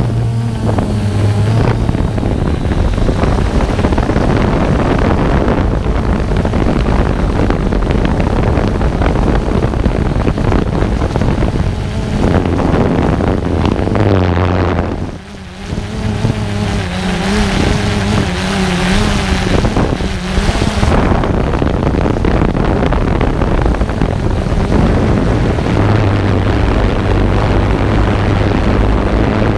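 A drone's electric motors and propellers running in flight, heard through the camera mounted on it, with wind buffeting the microphone. The motor hum wavers in pitch as the drone manoeuvres, and the sound dips briefly about fifteen seconds in.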